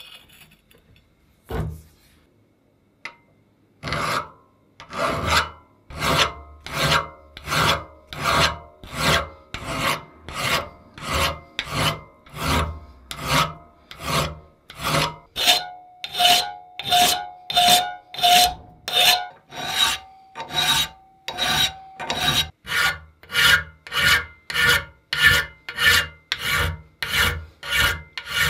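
Hand file rasping across the steel jaw of a 1930s Adriance adjustable wrench held in a bench vise, in even strokes about one and a half a second. The strokes start after a single knock about a second and a half in. A faint metallic ring sounds under the strokes for several seconds in the middle.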